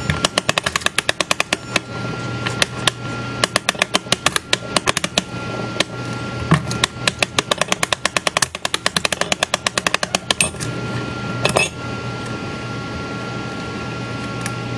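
Ratchet of an Ollie Baker-type mainspring winder clicking rapidly as its crank handle is turned, winding a clock barrel mainspring tight. The clicking comes in quick runs with short pauses, stops about ten seconds in, and is followed by a single knock.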